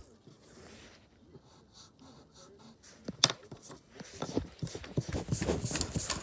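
Pencil eraser rubbing back and forth on drawing paper in short scrubbing strokes that come thick and fast over the last two seconds, with a sharp tap about three seconds in.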